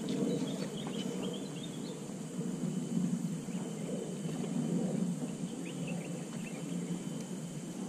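Outdoor lakeside ambience: a steady low rumble that swells and fades, with faint high chirping calls about a second in and again near six seconds.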